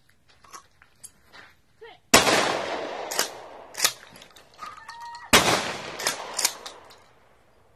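Remington 870 Express 12-gauge pump-action shotgun fired twice, about three seconds apart, each shot a loud bang with an echoing tail. Between the shots there are two sharp clicks of the pump being racked.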